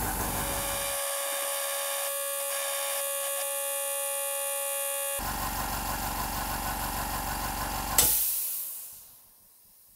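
Implotex 850 W oil-free silent air compressor, a twin-head piston unit, running steadily as it refills its tank. About eight seconds in, it reaches 8 bar and cuts out with a sharp click and burst, then its motor runs down to quiet within about a second.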